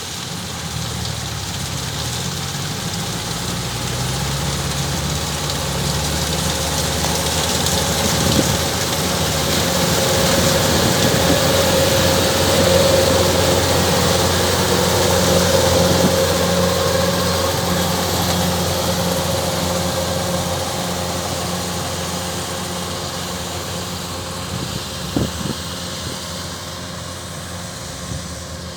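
Kubota DC105X rice combine harvester running: a steady diesel engine and machinery noise that grows louder toward the middle and then fades. There are a couple of brief knocks near the end.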